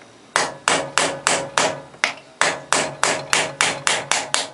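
Ball-pein hammer striking a steel punch held against the threaded ring of a Sturmey-Archer three-speed hub clamped in a vise: a steady run of about three sharp, ringing metal-on-metal taps a second, starting a moment in, driving the ring round to free it so it can be unscrewed.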